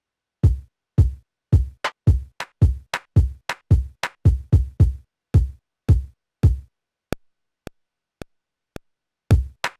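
Akai MPC drum machine playing a dry drum pattern of deep kick drum hits about twice a second with snappier hits in between. Partway through the kicks stop for four short evenly spaced ticks, then the pattern comes back in near the end.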